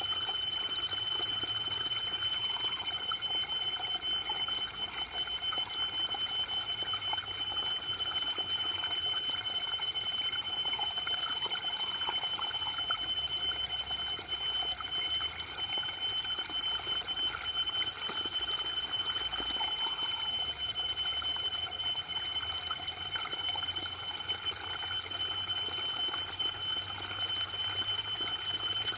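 Waterfall running steadily, an even rush of falling water, with a thin, constant high-pitched tone sounding over it throughout.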